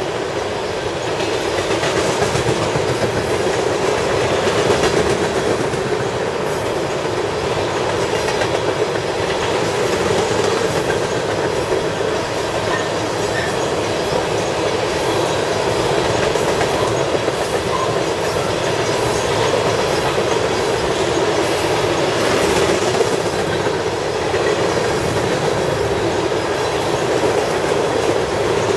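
Freight train of ethanol tank cars rolling past, a steady rumble of steel wheels on rail with repeated clacks as the wheels cross the track.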